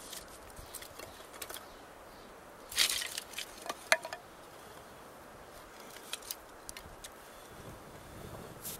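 Dry kindling and tinder rustling and crackling as they are handled over a fire lay, with a brief louder rustle about three seconds in and a sharp snap just after. Near the end, a low breathy rush begins as the tinder holding a flint-and-steel ember is blown on to bring it to flame.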